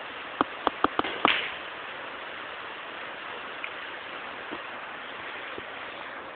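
Billiard balls clicking sharply against each other about five times in quick succession within the first second and a half, then only a steady hiss.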